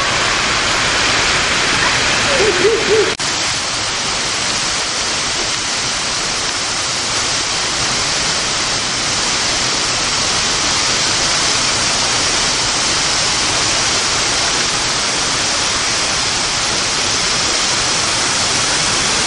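Steady rushing hiss like falling water or static, even throughout. A brief wavering call-like sound comes a little under three seconds in, and a sudden break about three seconds in.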